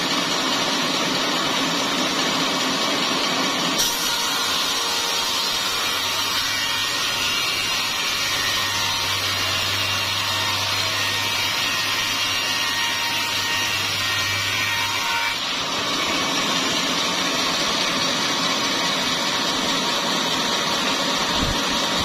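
Sawmill saw cutting a small-leaved acacia log into boards: a loud, steady cutting noise that shifts in character about four seconds in and again about fifteen seconds in, with a low motor hum under it for part of the cut.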